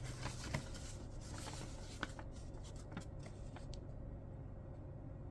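Packaging being opened and handled by hand: faint rustling with small clicks and taps, dying away about four seconds in.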